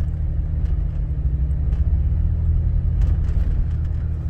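Toyota FJ 4x4 driving in four-wheel drive over wet sand dunes: a steady low engine and drivetrain rumble, with a few light knocks.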